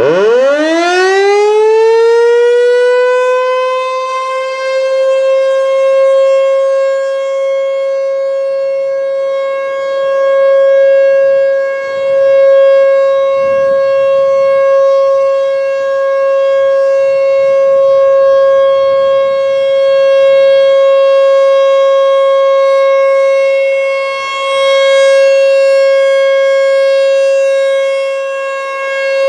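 American Signal T-128 outdoor warning siren winding up at the start of its test: the pitch climbs fast for about two seconds, then holds one steady tone. The loudness swells and dips every several seconds as the rotating siren sweeps past.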